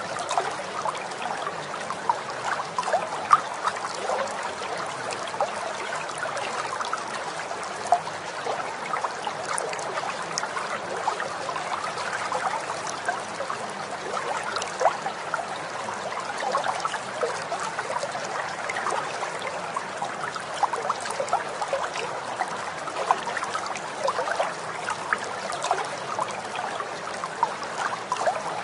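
Steady trickling, babbling water with many small splashes and drips, even in level throughout.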